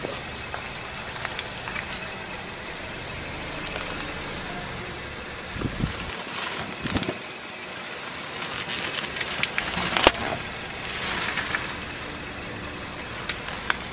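Car tyre rolling slowly over a whole pineapple, crushing its flesh and crown: scattered crunches and crackles, the sharpest about ten seconds in, over the low running of the car.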